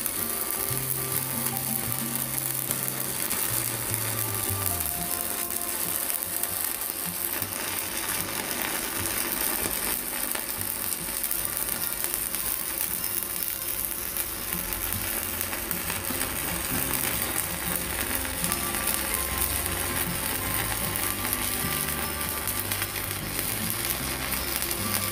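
Arc of a mini IGBT inverter stick (MMA) welder burning a 4.0 mm electrode, sizzling steadily without a break.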